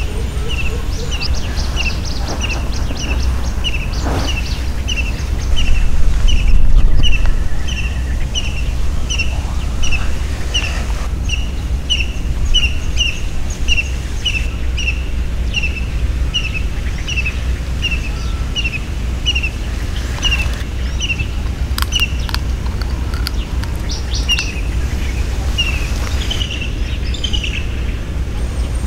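A bird repeating one short, high chirp at a steady pace of about two a second, over a low rumble that swells briefly about six seconds in.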